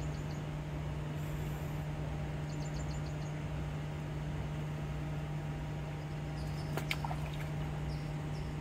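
Outdoor ambience with a steady low hum, over which birds give short, quick ticking trills and chirps, and there is one sharp click about seven seconds in.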